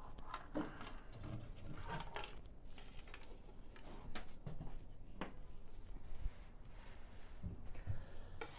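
Faint, scattered clicks, light knocks and rustles of a plastic motorcycle side intake panel being picked up and handled.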